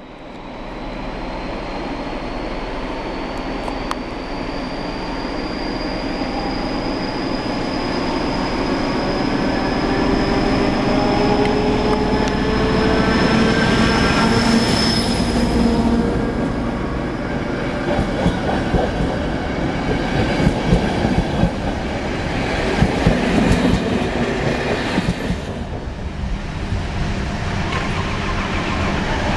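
Diesel-hauled passenger train running, with a high whine that rises slowly in pitch through the first half. In the second half, wheels clatter over rail joints in a run of sharp clicks.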